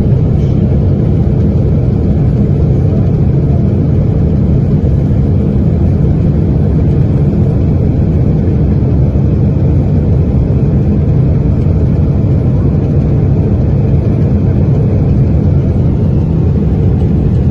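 Loud, steady low roar of a Boeing 777 in flight, heard from inside the cabin beside its failed engine, which is burning with its cowling torn away.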